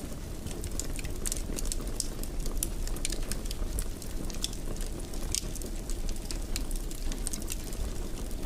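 Wood fire burning in a fireplace: a steady low rumble of flames with frequent irregular crackles and small pops.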